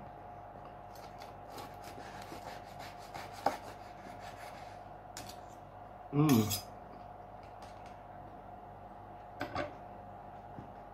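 A large knife cutting through baked pizza crust on a wooden board, with small scraping clicks of knife and fork against the board and metal tray. A short vocal sound about six seconds in, and a couple of clicks near the end as the knife is set down on the board.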